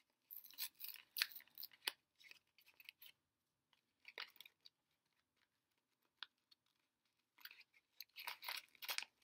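Faint crinkling and rustling of a Fisherman's Friend cough-drop packet being handled as a lozenge is taken out, in short spells over the first three seconds, a few more around four seconds in, then again near the end.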